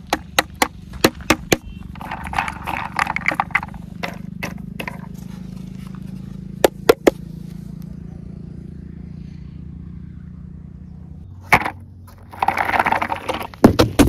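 Sharp clicks and knocks from a wooden toy truck model being handled. There is a quick run of them in the first second and a half, a pair about seven seconds in and one more near the end, with short stretches of scraping rustle between.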